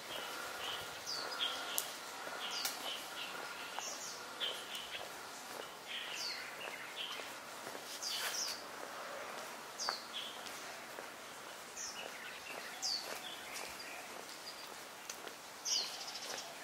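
Small birds calling in the trees: a short, high chirp that sweeps downward, repeated every second or two, with softer twittering beneath it, over faint steady background noise.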